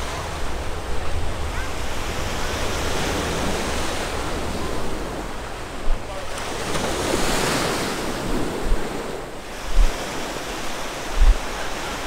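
Ocean surf washing onto the beach, one wave swelling loudest about halfway through and then fading. Wind buffets the microphone with low rumbles and a few thumps.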